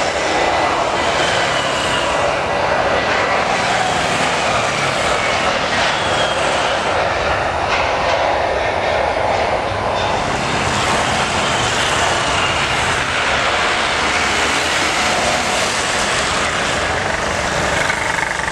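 Boeing 737-800's CFM56-7B jet engines at takeoff thrust during the takeoff roll: a loud, steady rush with faint whining tones that slide down in pitch as the jet passes.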